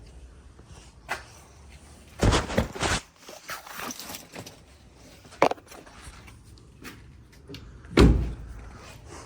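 A few knocks and clatters, then a single heavy thump about eight seconds in, the loudest sound here.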